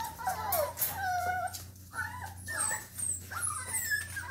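Norwegian Buhund puppies about four and a half weeks old whimpering and whining: many short, high, wavering cries, several times a second, overlapping one another.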